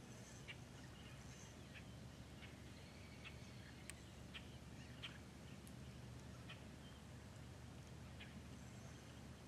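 Faint, scattered short calls from birds, a few each second at irregular intervals, over a low steady outdoor rumble.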